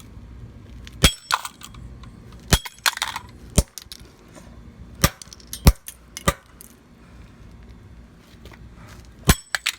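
A kitchen timer being struck, about eight sharp knocks at irregular intervals, several with a brief high metallic ring after them.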